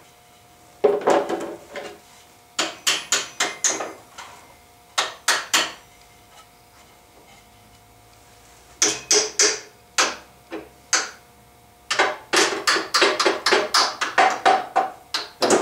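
Sharp metal clicks and knocks from working on the telescoping posts of a drill-press table support stand, coming in short irregular clusters and then a fast run of clicks over the last few seconds.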